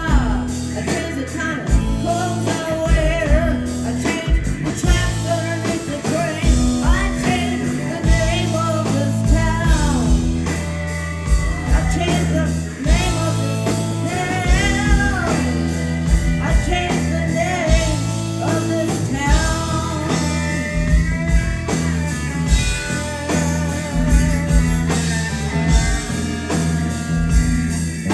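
A rock band playing live: electric guitars, bass and drums on a steady beat, with singing and bending lead lines over the top.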